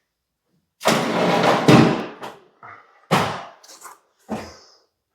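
Steel plastering trowel scraping over setting filler on a ceiling patch: one long stroke about a second in, then two shorter strokes.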